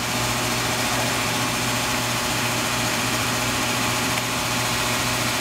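A steady machine hum with an even hiss, unchanging throughout.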